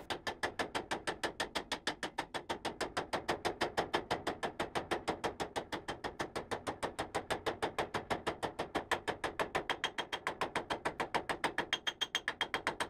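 Hammer beating a sheet-metal repair panel to form it around a clamped template: a steady, rapid run of even blows, several a second.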